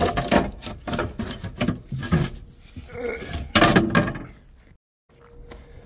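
A plywood board scraping and knocking against the metal underside of an RV slideout as it is worked into the gap and pulled back out: it is too big to fit in one piece. The handling noise stops about four seconds in.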